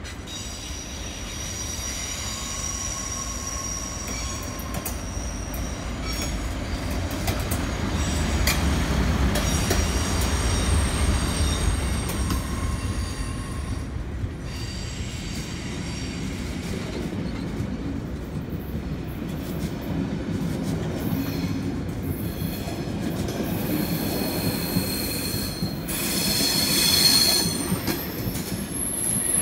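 SBB passenger train, locomotive and coaches, running past along the platform: a low rumble of wheels on rail, with high drawn-out wheel squeals that come and go. It is loudest in the middle and again near the end, when the squeal is strongest.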